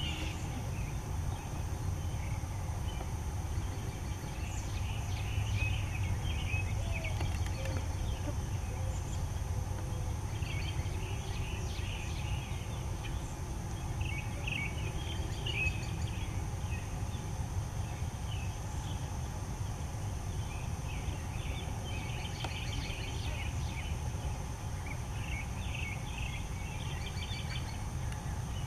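Outdoor ambience: a steady low rumble, with bouts of faint, high bird chirping that come and go every few seconds.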